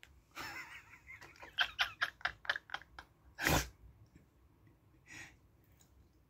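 Close breathy noises: a run of short puffs of breath, about five a second, then one loud burst of breath and a fainter one a couple of seconds later.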